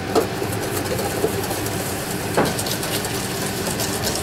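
Wire whisk beating thickened egg yolks and sugar in a stainless steel bowl over a double boiler, quick scraping strokes against the metal over a steady background hum. A louder metallic knock comes about two and a half seconds in.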